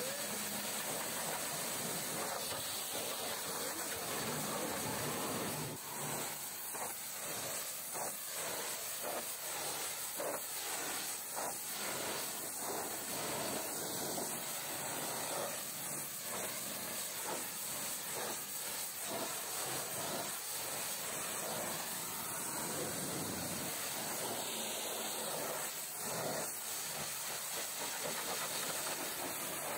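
High-pressure washer jet spraying, a steady hiss that rises and falls slightly as the spray moves.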